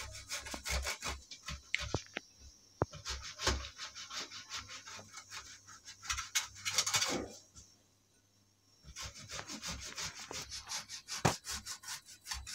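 Boiled potatoes being grated on a stainless steel box grater: quick, rhythmic scraping strokes, broken by a pause of about a second just past the middle.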